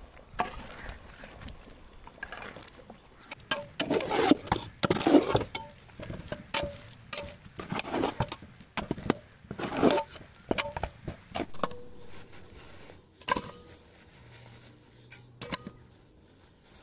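Metal spoons stirring and scraping in metal cooking pots of thick curry and mashed tapioca: a run of knocks, clinks and scrapes, loudest about four to five, eight and ten seconds in, with fewer and fainter knocks near the end.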